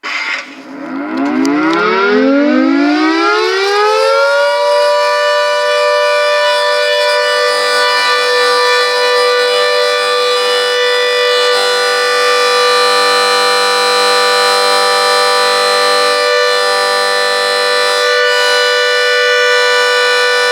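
Secomak CS8 civil defence siren starting up for a test: its pitch winds up over about four and a half seconds, then holds one loud steady tone.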